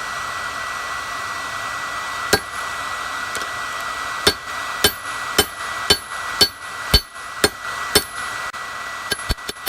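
Blacksmith's hammer striking steel on an anvil, each blow with a bright ring: a single blow a couple of seconds in, then a steady run of about two blows a second, turning to quicker, lighter taps near the end. Beneath it is a steady rushing hiss.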